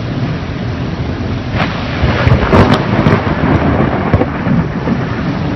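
Thunderstorm: steady heavy rain under a low rumble, which swells about two seconds in with a few sharp crackles.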